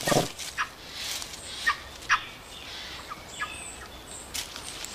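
Japanese macaques giving a few short, harsh calls, the loudest right at the start, with small birds chirping briefly in the background.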